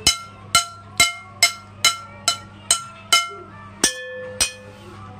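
A metal spoon tapping repeatedly on a ceramic plate: about ten ringing clinks, roughly two a second, with a short pause before the last two, which ring at a different pitch.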